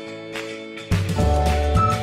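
Background music on the outro: held chords, with a heavy bass and beat coming in about a second in and a high melody line near the end.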